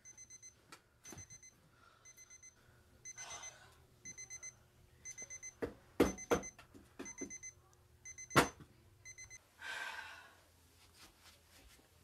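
Digital alarm clock beeping in quick groups of high beeps about once a second, stopping about nine seconds in. Several loud knocks on wood come around six and eight seconds in, with brief rustling of movement.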